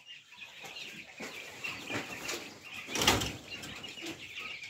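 Chickens clucking softly amid rustling in the cages, with one short, louder rustle about three seconds in.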